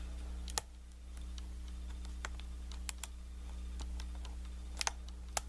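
Small, irregular metallic clicks of a lock pick and tension wrench working the pin stack of a Kwikset knob cylinder, over a steady low hum. The pick is probing a pin that won't lift, which the picker takes for an undercut pin.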